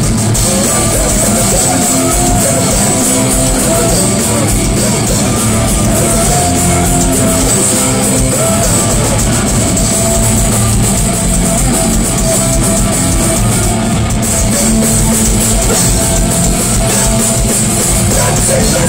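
Hardcore punk band playing live and loud: electric guitars and a pounding drum kit, recorded from inside the crowd of a small club.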